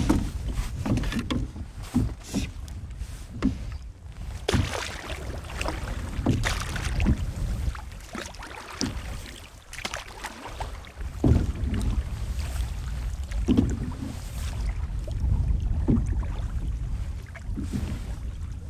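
A canoe being paddled: irregular paddle strokes splash and knock, about one every second or two, over a steady rumble of wind on the microphone.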